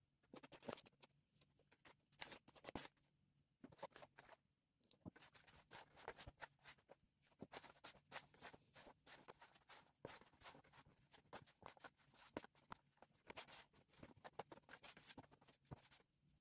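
Faint, irregular squishing, crumbling and rustling of a hand mixing flour, lard and hot water into a dough and kneading it against the sides of a plastic bowl.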